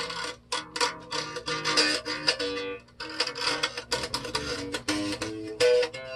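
Epiphone EB-0 electric bass with its strings plucked in a quick run of notes; the bass is out of tune.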